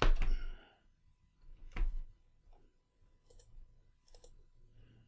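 Computer mouse and keyboard clicks: a louder one right at the start, another just under two seconds in, and fainter sharp clicks later on.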